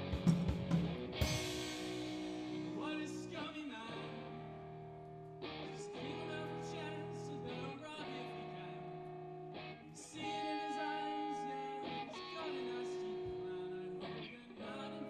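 Live band playing a song, led by strummed guitar chords that change every one to two seconds.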